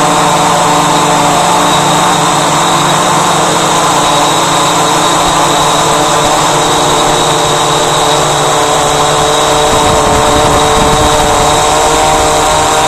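Walkera Voyager 3 quadcopter's electric motors and propellers whining steadily in flight, heard from the camera mounted on the drone. A rougher low rumble joins about ten seconds in.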